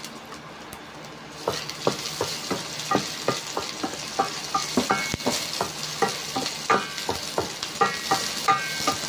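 Garlic and ginger sizzling in hot oil in a stainless steel pan while they are sautéed. From about a second and a half in, a wooden spatula stirs them, scraping and knocking against the pan about two or three times a second.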